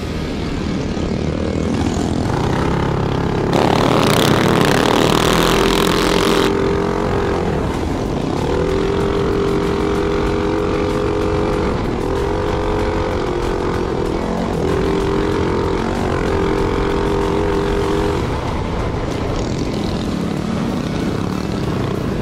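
Minibike engine running hard under throttle on a dirt trail, its pitch holding and dipping as the rider rolls on and off. A stretch of harsh rushing noise comes about four to six seconds in.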